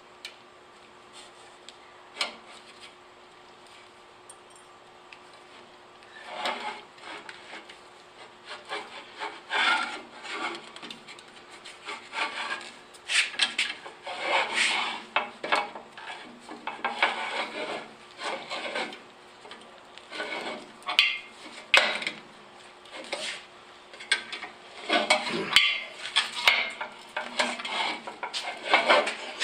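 An M10 × 1.5 tap being turned by hand into a drilled pilot hole. Irregular metallic scraping and grinding strokes start about six seconds in and repeat as the tap cuts the thread.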